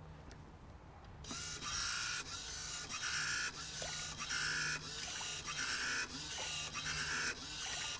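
Small motorised wave-maker of a model wave tank running, whirring in regular pulses a little faster than once a second as it pushes out a train of waves, over a low steady hum.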